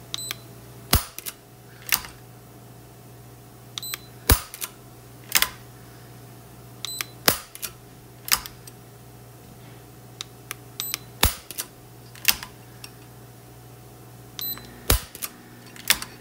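Taurus 856 revolver being dry-fired in single action by a Lyman electronic trigger pull gauge: sharp metallic clicks of the hammer being cocked and then falling, in pairs about a second apart and repeating every three or four seconds, with a short electronic beep from the gauge as each pull registers. A steady low hum runs underneath.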